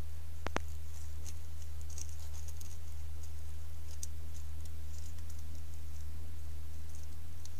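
Steady low electrical hum of the trail camera, with faint scattered ticks and light patter and two sharp clicks about half a second in, as a common genet brushes against and moves around the camera.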